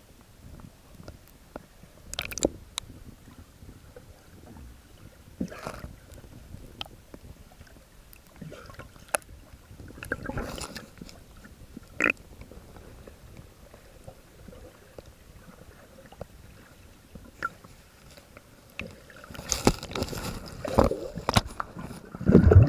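Underwater sound through a camera housing: a low murky water rumble with scattered clicks and knocks, then a busier, louder spell of knocking and bubbling near the end, with low thumps as a harbour seal comes right up to the camera.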